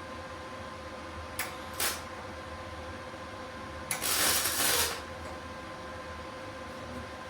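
Welder arc crackling on a mini bike's steel frame, laying a weld over a crack: two brief bursts, then a longer burst of about a second four seconds in, over a steady hum.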